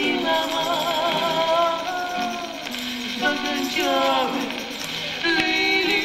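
A song sung over instrumental accompaniment, with a tambourine shaken and struck along for the dance.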